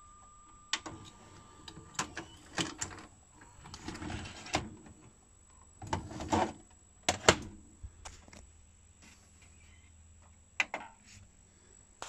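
Sony SLV-EZ735AZ VHS video player stopping and ejecting a cassette: a run of mechanical clicks and clunks from the loading mechanism, then plastic clacks as the VHS tape is pulled from the slot and handled. The loudest is a pair of sharp clacks a little after seven seconds.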